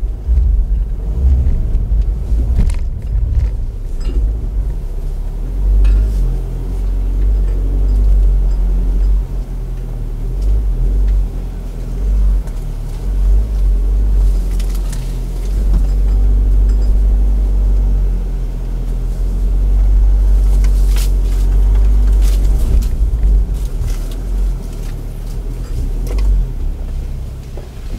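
Audi Q5 driving over a rough dirt forest track, heard from inside the cabin: a loud, low rumble of the car and its tyres on the uneven ground, broken by scattered knocks and clatters.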